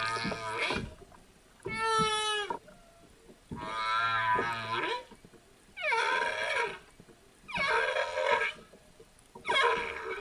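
Whale calls: a series of about six pitched, harmonic cries, each roughly a second long with short gaps between, several of them falling in pitch.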